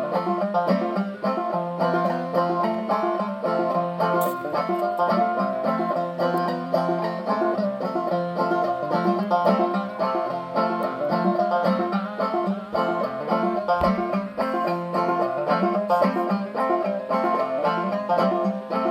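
Clawhammer banjo playing an instrumental break of an old-time tune: a steady, driving rhythm of picked single notes and downstroke strums.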